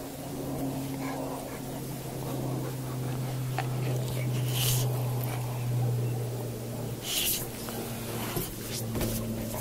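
Bulldog-type dog sniffing at close range, with two sharp snorts about four and a half and seven seconds in, over a steady low hum.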